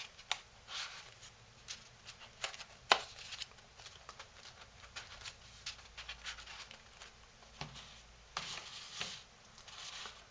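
Folded paper being handled and worked into a pleated paper cube's pocket: faint rustling and crinkling with scattered small clicks, a sharper tap about three seconds in and a longer rustle near the end.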